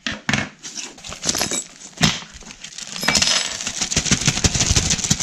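Small metal assembly hardware (an Allen key, screws and washers) clinking and clattering as it is handled and dropped on a wooden floor. A few sharp clicks come first, then a denser run of clatter and handling noise from about three seconds in.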